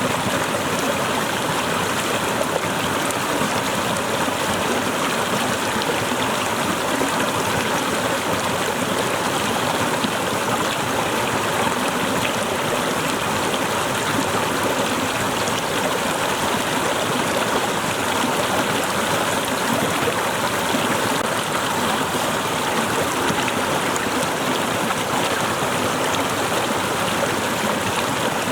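Small waterfall splashing and rushing in a steady, unbroken flow.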